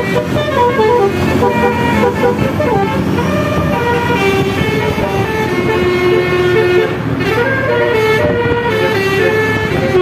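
Multi-tone telolet horn playing a melody of stepped notes that change pitch every fraction of a second, over a low rumble.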